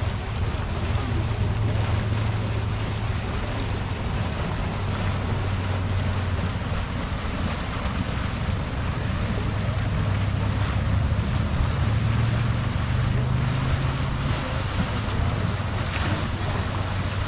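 Yellowstone's Mud Volcano vent giving off steam: a steady rushing noise with a low rumble underneath, mixed with wind on the microphone.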